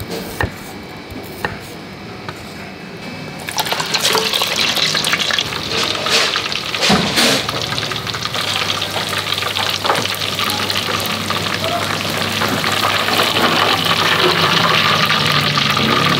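A few cleaver chops on a wooden board. Then, from about three and a half seconds in, pieces of vegetarian mock crispy pork sizzle steadily as they deep-fry in a pot of hot oil.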